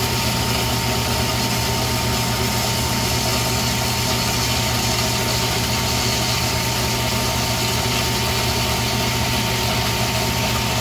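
Tormach AF50 automatic bandsaw running, its blade sawing through a bundle of aluminium bars: a steady machine hum with a thin, steady whine on top.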